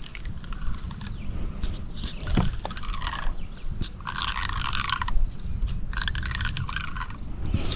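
Fishing line being pulled in strokes off a backlashed baitcasting reel, giving bursts of scraping and rustling about a second long with short gaps between them.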